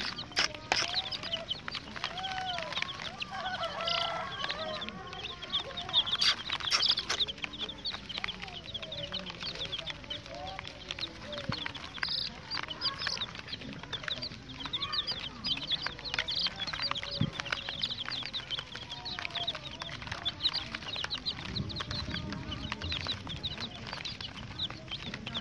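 A basketful of baby chicks peeping continuously, many short high cheeps overlapping. A few sharp knocks sound in the first second and again about six seconds in.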